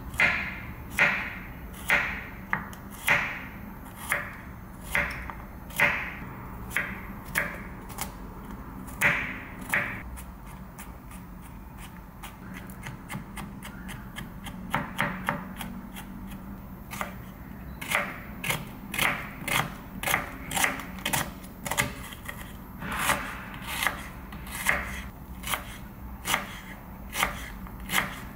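Chef's knife chopping garlic and onion on a wooden cutting board. The knife knocks on the board about once a second at first, goes to light taps for a few seconds, then picks up into quicker runs of chopping as the garlic is minced.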